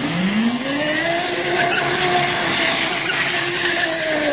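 A 72-volt, 3000-watt Kunray brushless motor on an electric go-kart, its whine rising in pitch over the first second and then holding steady while the kart spins donuts. Under it is a steady high hiss from the rear tyres sliding and scrubbing on concrete.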